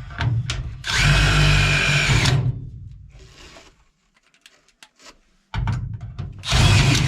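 A cordless power drill running in two spells with a steady whine: the first about a second in, lasting about a second and a half, the second near the end.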